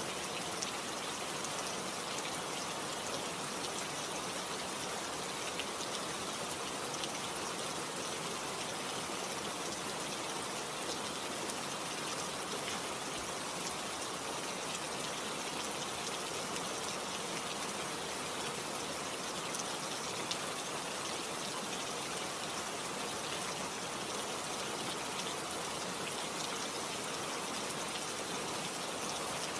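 Steady rainfall, a dense even hiss with scattered drop ticks, without a break.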